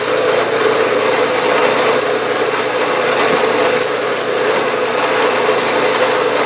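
Vertical milling machine's spindle running steadily with a constant hum while a center drill cuts a starting hole in the workpiece.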